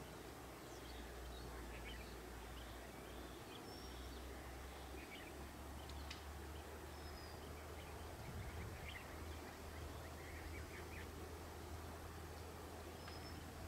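Faint forest ambience: scattered bird chirps and a few short whistled calls over a steady low hum, the far-off rumble of a passenger train rounding a curve.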